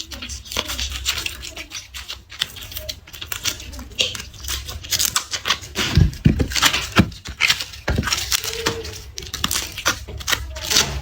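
Dry garlic skins crackling and tearing as cloves are peeled by hand: a crisp, dense run of close crackles, with a couple of low knocks about halfway through.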